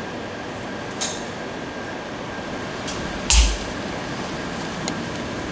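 Screw cap of a plastic Coca-Cola bottle twisted open, releasing a short sharp hiss of carbonation gas just past the middle, after a fainter hiss about a second in. A steady background hum runs underneath.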